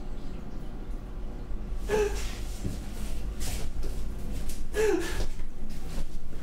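A man laughing almost silently: high, squeaky wheezing gasps about two seconds and again about five seconds in, with breathing in between.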